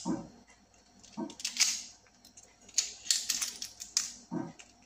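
Shell of a hard-boiled egg being cracked and peeled by hand: an irregular scatter of sharp crackling clicks, with the shell coming away easily.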